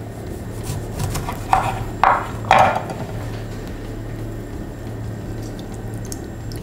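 A lime half squeezed by hand over a small glass bowl: three short sounds in quick succession about a second and a half in, then only a faint steady hum as the juice runs into the bowl.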